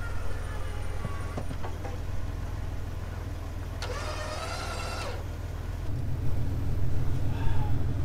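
Vehicle engines running steadily at idle, with a brief high whine lasting about a second around the middle and the engine note picking up a little near the end.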